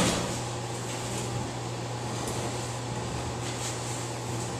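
Room tone: a steady low hum like an air conditioner or fan, with a soft knock right at the start and a few faint rustles.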